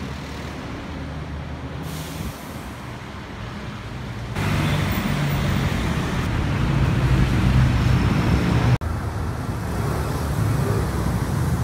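Street traffic: vehicle engines running and passing, with a low engine hum. It grows louder about four seconds in and changes abruptly near nine seconds.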